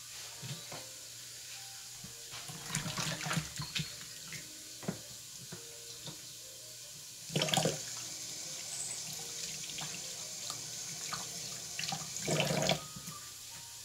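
Kitchen sink tap turned on a little past halfway and left running for about five seconds while hands are washed under it, louder as it starts and just before it stops. Light knocks and clatter come before it.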